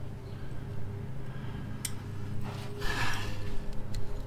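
A man's heavy breath out, a sigh-like exhale just under a second long, over a steady low hum. Two light clicks come before and after it as his hands and the wrench work the brake switch linkage.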